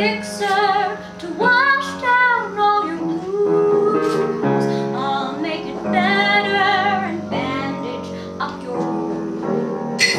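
A woman singing with vibrato, holding long notes, accompanied by piano.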